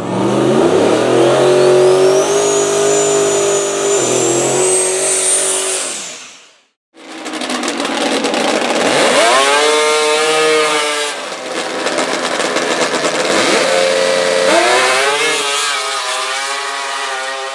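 For the first six seconds, an engine revs up and holds, with a high whine climbing above it; it cuts to a brief silence. Then a drag-racing snowmobile's engine blips up sharply twice at the starting line and goes into a steady high-revving run as the sled launches down the strip.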